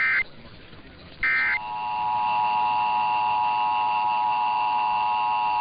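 Emergency Alert System end-of-message data bursts: the last two of three short, screechy digital bursts, marking the end of the alert. About a second and a half in, a steady EAS attention tone starts and holds, opening the next alert.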